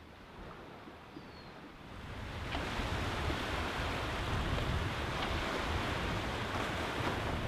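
Lake waves breaking and washing over rocks at the shore: a steady rush of surf that starts about two seconds in, after a quiet stretch.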